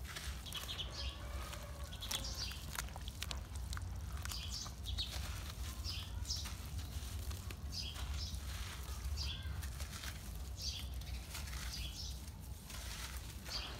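Hands squeezing and crumbling clumps of wet sand and cement in watery cement slurry: repeated gritty, crunchy squelches, about one a second, over a steady low rumble.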